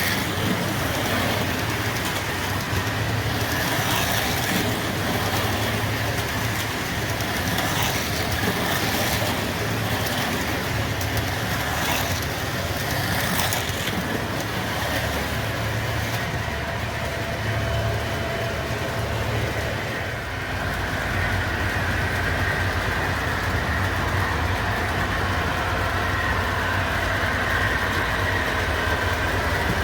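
MTH O gauge model diesel locomotive running, its Protosound diesel engine sound effects playing from the onboard speaker as a steady low engine hum. A steady higher whine comes in about halfway.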